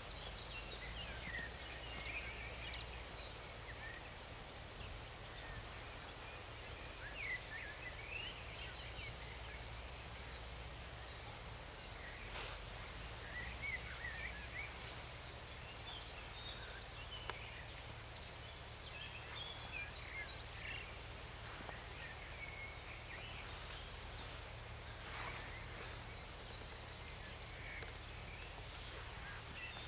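Birds chirping and singing in many short phrases over a faint, steady low hum of a distant diesel tractor engine working across the field.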